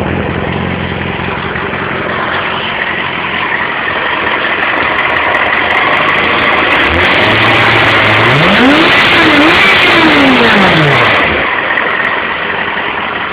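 Yamaha Fazer 600 sportbike's inline-four engine on its stock exhaust, revved once: from a steady low note the pitch climbs, wavers briefly at the top, then falls back down and fades out about 11 seconds in. A steady hiss of background noise runs underneath.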